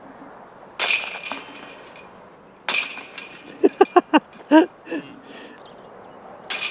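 Discraft Buzzz midrange discs hitting the chains of a Dynamic Discs Veteran disc golf basket on putts. The chains jangle and ring briefly three times: about a second in, around three seconds in, and again at the very end.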